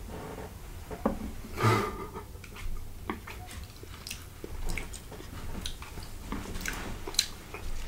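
Close-miked chewing, with wet mouth sounds, and a metal fork scraping and tapping on a ceramic plate, heard as scattered short clicks.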